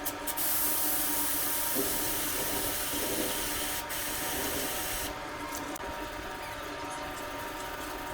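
Aerosol chain spray hissing onto a motorcycle chain in one long spray with a brief break near the middle, cutting off about five seconds in; fainter rubbing follows.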